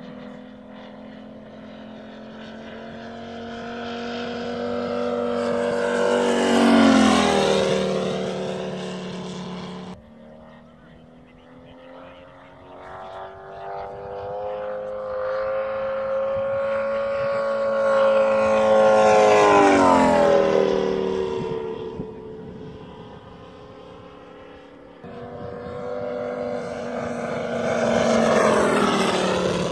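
The five-cylinder Moki 250 radial engine of a large radio-controlled Yak-11 model runs at high power over three low fly-bys. Each pass swells to a peak and then drops in pitch as the plane goes by. The loudest pass is about two-thirds of the way through, and the sound breaks off abruptly twice between passes.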